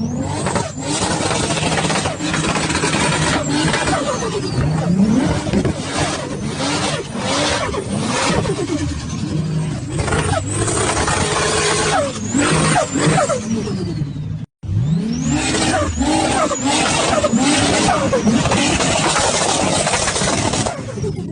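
Turbocharged car engines revved in repeated hard bursts. Turbo flutter and sharp backfire pops come off each lift, and a high whistle falls away after several revs. A brief dropout about fourteen seconds in leads into another car doing the same.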